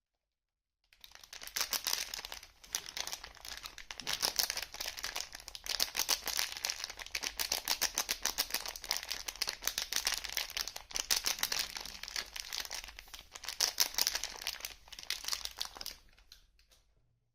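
Soap packaging crinkling and rustling as it is unwrapped by hand, a dense run of fine crackles that starts about a second in and dies away near the end.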